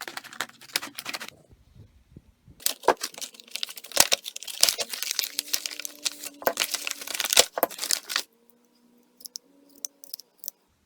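Retail packaging of a multitool being torn and crinkled open by hand, a dense crackling rip with sharp snaps lasting about five and a half seconds, followed by a few light clicks near the end.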